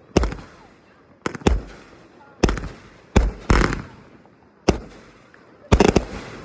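Fireworks going off: about eight sharp bangs at uneven intervals, each with a short fading echo, and a close double bang near the end.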